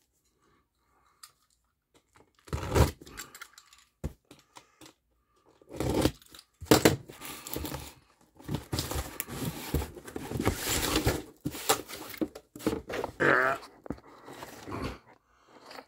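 Cardboard shipping box being opened by hand: cardboard and tape tearing and rustling in irregular bursts, with a few sharp knocks as the flaps and lid are handled.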